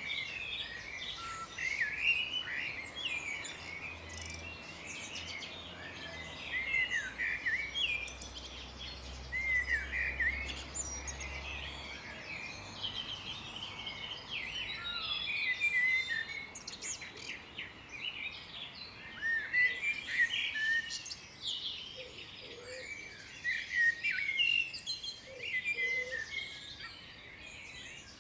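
Several songbirds singing and chirping together, a busy chorus of short, quick notes that sweep up and down, overlapping without pause.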